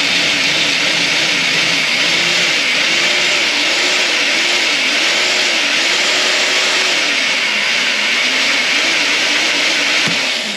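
Power drill running continuously as it bores through a small seized stereo mounting bolt, its motor pitch dipping and recovering over and over as the bit bites into the metal. It stops near the end as the bolt gives way.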